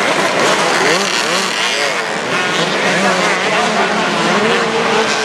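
Several motocross bike engines revving at once, their pitches overlapping as they rise and fall through the gears. Partway through, one engine settles into a steadier held note.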